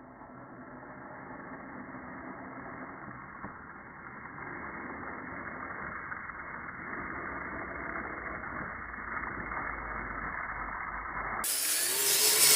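Kyosho Blizzard radio-controlled snow vehicle's electric motor and drivetrain whirring as it climbs a snowy hill, the pitch rising and falling with the throttle.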